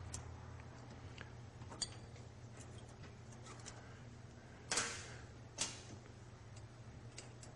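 Floating brake caliper being worked by hand over new disc brake pads: faint scattered metal clicks and taps, with two louder scraping knocks close together about five seconds in, over a faint low hum.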